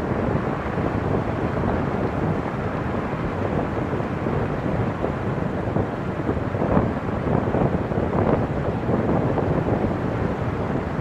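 Wind buffeting a microphone mounted outside on a car's roof, over the steady noise of the car driving on a paved road, with gusty swells.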